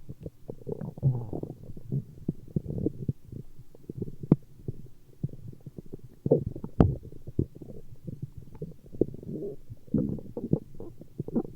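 Stomach growling: a continuous, irregular run of low gurgles and pops, with two sharper pops, one a little after four seconds in and one near seven seconds.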